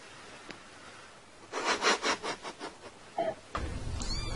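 A quick run of about eight rasping scratches over a second or so. Near the end a steady hum starts, with a short high mew over it.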